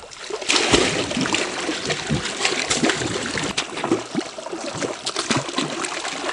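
Water splashing, with many short quick splashes: a hooked golden dorado thrashing at the surface as it is brought to the net.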